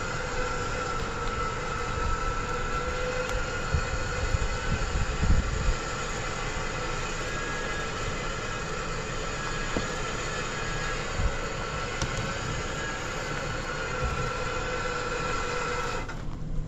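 Electric winch running under load as it reels in its line and drags a stuck car up a rocky wash: a steady whine with a few low thumps a few seconds in. The whine stops near the end.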